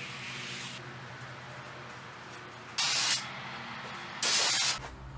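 Aerosol spray can hissing as cleaner is sprayed onto the corroded injector area of a car engine. It sprays for a short while, stops under a second in, then gives two short, louder bursts about a second and a half apart.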